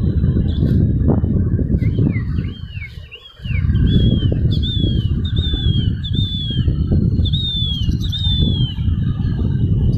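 Wind buffeting the microphone, dropping away briefly about three seconds in, with a bird calling a run of short arched chirps, about two a second, from about two seconds in until near the end.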